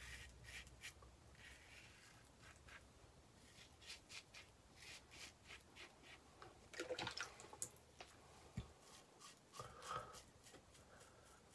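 Faint, short scraping strokes of a Gillette SuperSpeed double-edge safety razor cutting through lathered whiskers, in quick series with brief pauses between.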